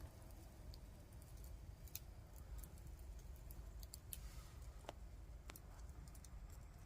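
Campfire burning faintly, with sharp, irregular crackles and pops over a steady low rumble.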